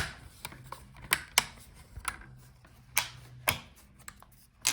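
Sharp plastic clicks and snaps, about six of them spread through a few seconds, as the Lenovo Legion 5 16IRX8's plastic hinge cover strip is pried and wiggled and its retaining clips let go.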